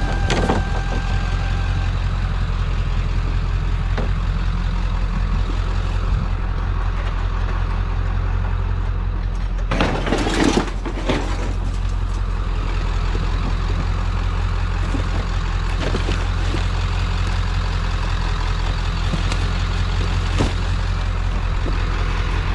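A truck engine idling steadily, with a few knocks and clanks over it, the loudest a cluster of knocks about ten seconds in.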